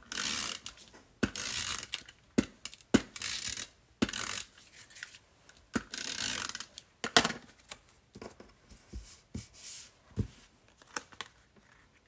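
A Snail tape runner drawn in short strokes along the edges of a paper panel, a ratcheting, rasping zip with each stroke, repeated several times over the first seven seconds or so. After that come scattered clicks and taps of paper being pressed down and handled.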